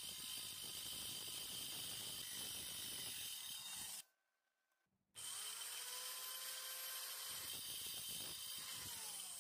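Worx compact circular saw cutting a brass bar held in a vise: a steady high whine over the rasp of the blade in the metal. It breaks off for about a second, four seconds in, then comes back with a rising whine and cuts on, and the whine falls away just before the end.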